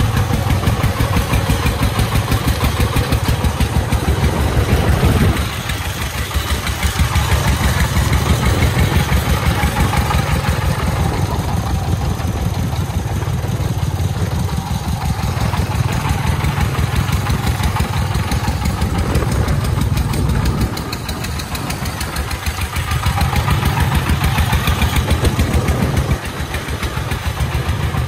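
Công nông farm truck's single-cylinder diesel engine chugging with a fast, even beat as it drives loaded with gravel. The loudness drops suddenly a few times.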